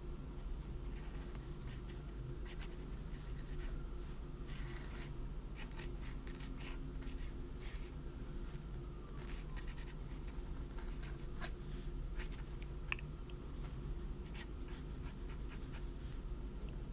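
Steel dip-pen nib scratching across paper in short, irregular strokes as lines are inked, over a steady low background hum.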